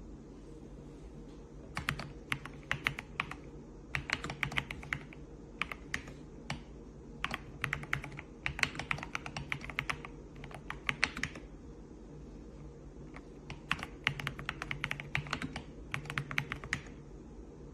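Typing on a Redragon K668 wired mechanical keyboard: quick runs of key clicks in bursts of a second or more, with short pauses between them, over a steady low hum.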